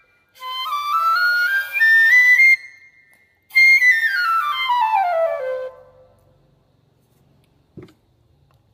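Home-made bamboo transverse flute played in stepwise scale runs: two rising runs, then a longer run falling note by note from the top down to the lowest note, as the finger holes are tried out. A single short knock follows near the end.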